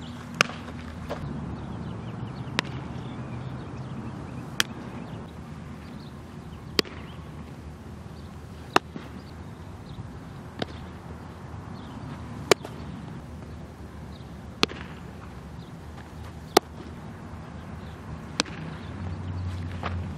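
Sharp pops of baseballs being caught or hit during practice, one about every two seconds, over a low steady outdoor background.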